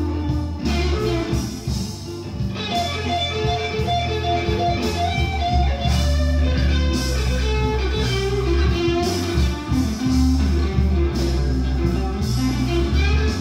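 Blues recording played back through a Yamaha M-80 stereo power amplifier, with electric guitar over a steady bass line.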